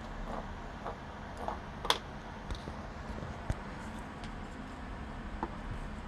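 Teething kitten gnawing on a wooden disposable chopstick: scattered small clicks and taps of teeth on wood. The loudest click comes about two seconds in.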